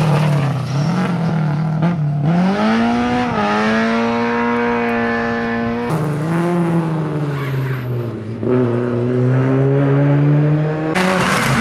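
Rally car engines held at high revs across edited clips. About two seconds in, the revs climb and hold at a steady high pitch until an abrupt cut near six seconds. After the cut, a Lada 2107 rally car's engine runs at a lower, steady note that climbs slightly before another abrupt cut near the end.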